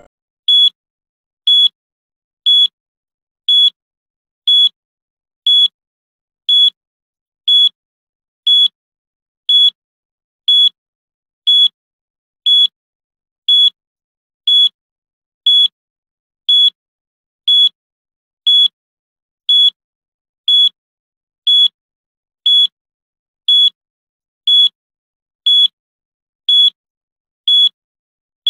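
Countdown timer's electronic beep: one short, high-pitched beep every second, marking off the seconds.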